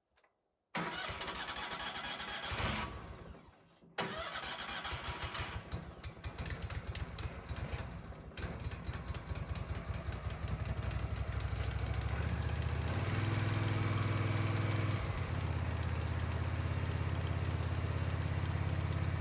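A Wood-Mizer LT15 sawmill's gasoline engine being started. The first attempt dies away after a few seconds; the second catches, runs unevenly for a few seconds, then settles into a steady run that speeds up about twelve seconds in.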